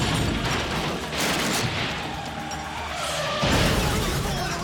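Film sound mix of a motorcycle chase: a motorbike smashing through wooden crates, tyres skidding and engines, over driving music, with a heavy crash about three and a half seconds in.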